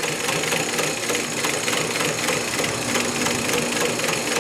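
Singer 112W115 double-needle, needle-feed industrial sewing machine stitching at slow speed: a steady, even run of needle strokes over the hum of its belt-driven motor.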